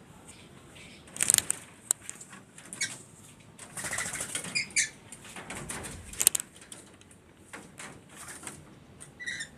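Red-and-blue lory (Talaud lory) flapping its wings in several short spells, with a few short high chirps in the middle and a brief call near the end.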